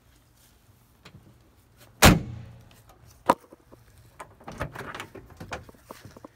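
A 1984 GMC ambulance's side compartment door slammed shut with one loud bang about two seconds in. A sharp click follows, then the clunks and rattles of the front cab door being unlatched and swung open.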